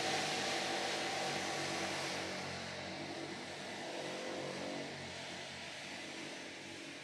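City street traffic: a motor vehicle's engine running over a hiss of tyre and street noise, loudest in the first couple of seconds and then fading away.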